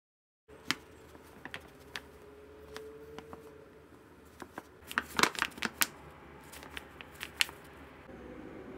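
Flour being poured from a bag into a glass bowl: soft rustling of the bag and falling flour, with a cluster of sharp ticks and crinkles about five seconds in.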